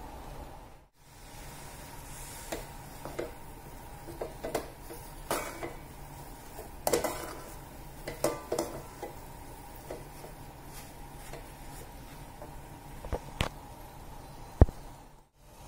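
A metal spoon stirring and scraping thick rava upma in a metal kadai, with irregular scrapes and light clinks over a steady low hiss. One sharp clink sounds near the end.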